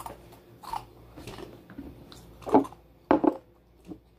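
A few short knocks and bumps from objects being handled close by: the loudest about two and a half seconds in, then two in quick succession just after three seconds, with fainter taps around them.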